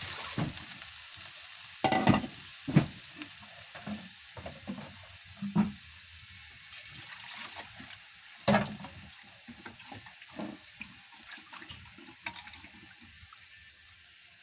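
Chicken pieces sizzling in hot oil in a frying pan, the hiss slowly dying down, with a few sharp knocks about two, three, five and a half and eight and a half seconds in as pieces and pan are handled.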